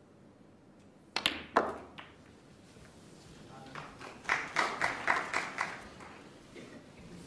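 Snooker cue tip striking the cue ball, then a sharp click about half a second later as the cue ball hits the black and pots it. A few seconds later comes a short burst of scattered clapping.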